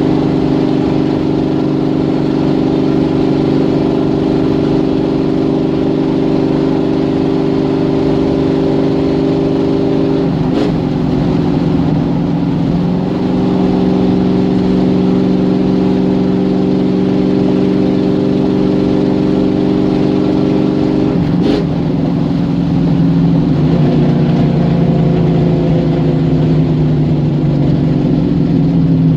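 A vehicle engine running steadily with no music. Twice the engine note breaks with a click and a short change in pitch, about ten and about twenty-one seconds in. Near the end the pitch wavers up and down.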